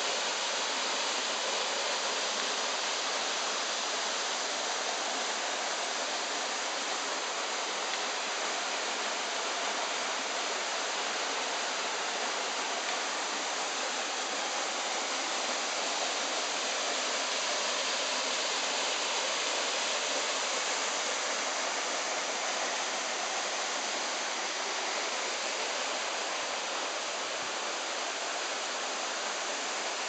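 Mitaru Gongen Falls, a narrow waterfall, pouring into its rock plunge pool: a steady, even rush of falling water.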